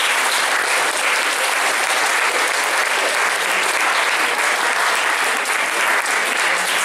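Audience applauding, a dense steady clapping that keeps going, as the stage goes dark at the end of a scene.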